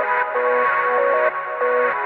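Background electronic music: a melody of held notes changing pitch every half second or so.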